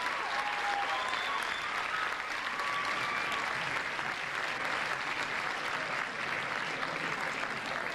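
Audience applauding at the end of a high school show choir number: dense steady clapping, with a few short cheers in the first half.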